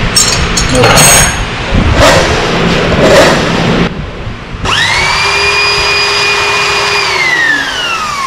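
Electric drill serving as the headstock of a homemade wood lathe, spinning a wooden block in its chuck. Its motor whine rises quickly to speed about four and a half seconds in, holds steady for about two seconds, then falls away as the drill coasts down. Before it, a few sharp knocks.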